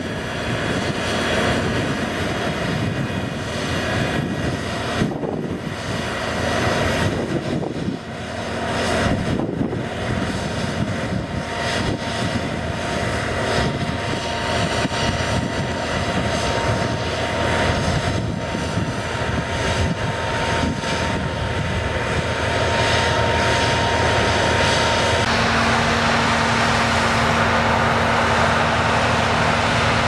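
New Holland combine harvester running while cutting wheat: a steady engine and machinery drone with a held whine. About 25 seconds in it changes abruptly to a louder, more even rush with a low hum.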